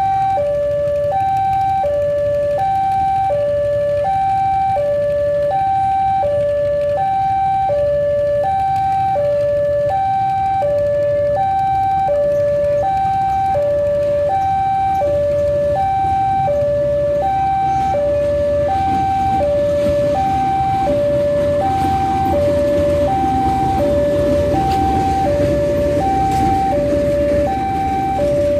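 Electronic railway level-crossing alarm sounding a steady two-tone alternation, high and low, each tone about half a second. Under it, the rumble of a train hauled by a CC 201 diesel-electric locomotive grows louder in the second half as the carriages pass.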